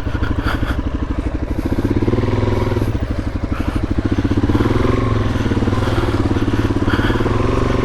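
Suzuki DR-Z400S single-cylinder four-stroke engine running steadily as the bike is ridden along the trail, with a quick pulsing beat. The revs rise slightly about two seconds in and again about five seconds in.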